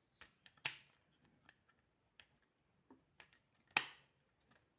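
Irregular clicks and snaps from a plastic scramble-and-solve puzzle ball being turned and handled in the hands, two of them louder, about a second in and near the end.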